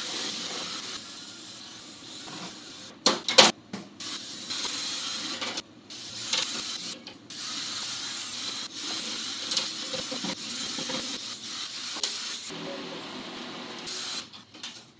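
Clicks, knocks and clatter of a flat-screen TV being taken apart, with the loudest knocks about three seconds in, over a steady high hiss.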